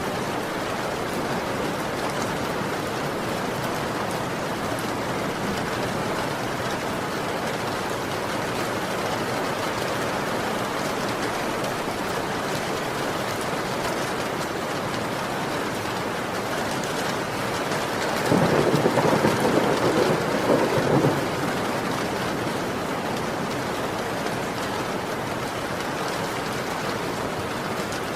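Steady heavy rain with a clap of thunder about two-thirds of the way through, a low rumble lasting about three seconds.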